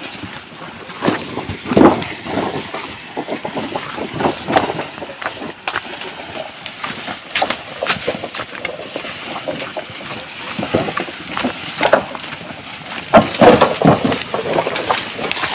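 A bundle of bamboo poles dragged along a dirt jungle path by a carabao, scraping over the ground and brush and clattering in irregular knocks, loudest about 13 seconds in.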